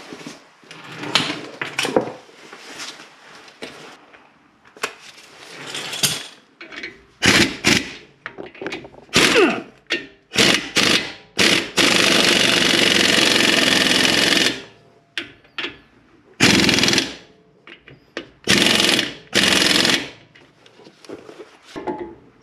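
Impact wrench running in a series of short bursts, with one longer run of nearly three seconds about twelve seconds in, driving bolts on a newly fitted front brake caliper.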